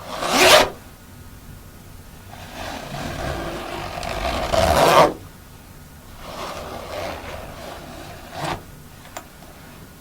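Jacket zipper being pulled: a quick loud zip at the start, a slower, longer zip that grows louder and stops sharply about five seconds in, then softer zipping and a last short zip with a small click near the end.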